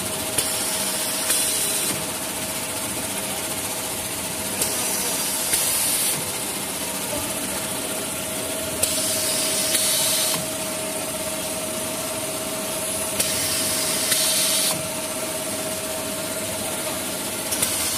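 Automatic band saw cutting machine for maxi-roll tissue paper running with a steady drone and a steady whine. About every four seconds there is a click, then a hiss lasting a second or two, five times in all.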